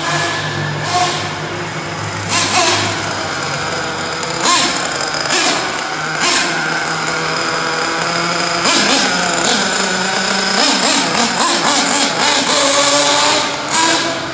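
Small nitro-fuelled RC car engine revving up and down over and over, its pitch rising and falling as the car drives around and past.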